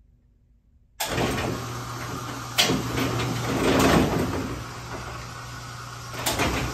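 AMF 82/70 pinspotter starting a cycle about a second in: a steady motor hum comes on suddenly and the setting deck lowers, with sharp metal clunks about a second and a half later and again near the end. The backend motor is off.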